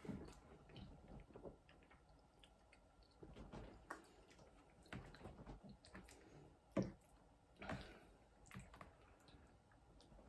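Quiet eating sounds: chewing on a mouthful of tomato pasta bake, with scattered soft clicks and squishes as a metal fork digs into the pasta in a foil tray. The loudest is a single knock about seven seconds in.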